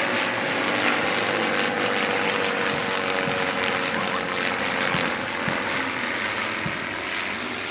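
Piston engines and propellers of a formation of four Zlin Trener aerobatic planes passing overhead, a steady drone whose pitch sags slightly about halfway through as they go by.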